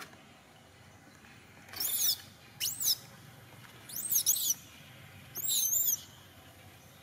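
A baby long-tailed macaque crying: about four bouts of high-pitched squeals that rise and fall in pitch, starting about two seconds in, the last one wavering. It is an infant's cry for milk, begging to nurse.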